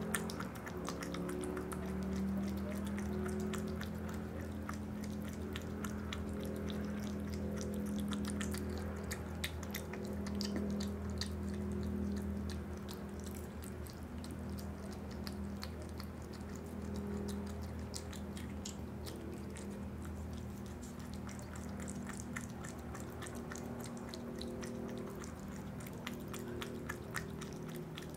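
Opossum eating yogurt: a dense run of wet clicks and smacks from its mouth as it laps and chews, over a steady low hum.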